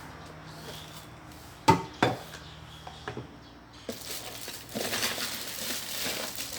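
Kitchenware being handled: two sharp knocks or clinks about two seconds in, a couple of lighter taps, then about two seconds of rattling and scraping near the end.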